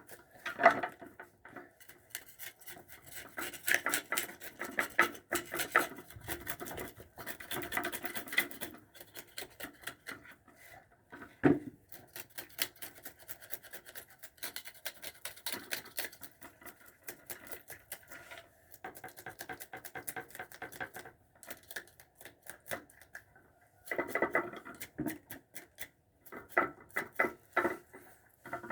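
Scales being scraped off a gilthead sea bream in quick, scratchy strokes, coming in runs with short pauses. A single sharp knock about eleven seconds in.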